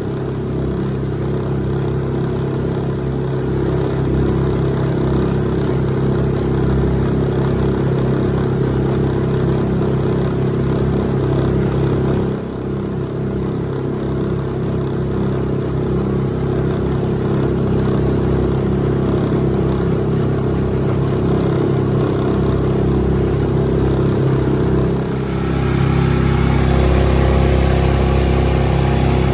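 Suzuki DF6A 6 hp four-stroke outboard motor running under way at a steady, limited break-in throttle. It dips briefly about twelve seconds in and runs louder, with more hiss, near the end.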